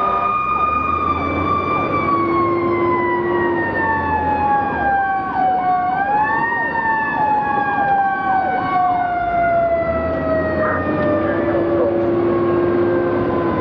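Fire engine running with warning devices on. A mechanical siren winds slowly down in pitch and is spun up briefly about halfway, over a fast electronic yelp siren. A short air-horn blast comes a few seconds in and a longer one near the end, with the truck's engine rumbling underneath.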